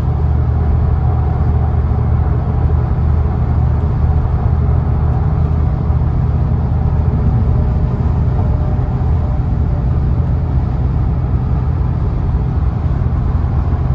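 2007 Audi RS4's 4.2-litre V8 running steadily under highway cruise, mixed with tyre and road noise, heard from inside the cabin.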